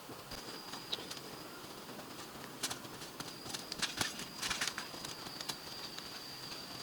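A steady, high-pitched insect drone in forest, with scattered sharp clicks and knocks, densest around the middle.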